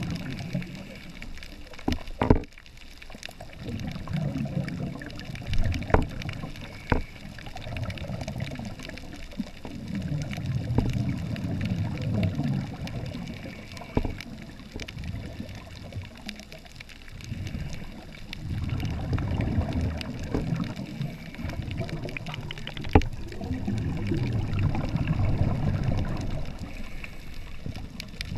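Muffled underwater bubbling and surge heard through a camera housing: scuba exhalation bubbles and wave movement come and go in rumbling swells every few seconds, with a few sharp clicks.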